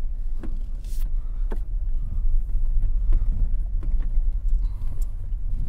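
Volkswagen Jetta driving slowly on a rough, stony dirt road, heard from inside the cabin: a steady low rumble with a few scattered sharp knocks and clicks as the car goes over the bumps and stones.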